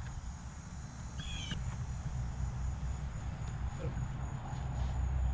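Steady high-pitched insect trilling over a constant low rumble, with a short high chirp about a second in.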